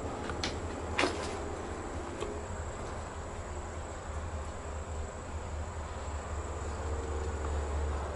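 A few sharp knocks, the loudest about a second in, over a steady high insect drone, crickets, and a low rumble.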